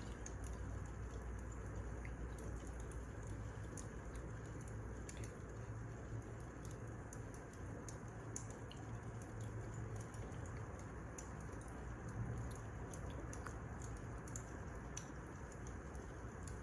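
Wood fire crackling, with irregular small pops and snaps over a steady low rumble.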